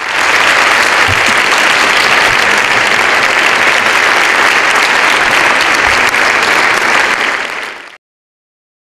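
Large audience applauding steadily, then fading out near the end.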